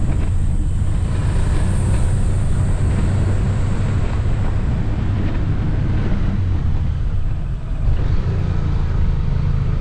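Motorcycle riding along, its engine running steadily under heavy wind buffeting on the microphone.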